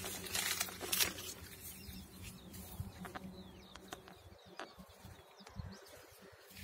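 Onion leaves rustling and brushing against a handheld phone as it is swept through the crop, with scattered clicks. A low, uneven rumble of handling noise comes in the second half.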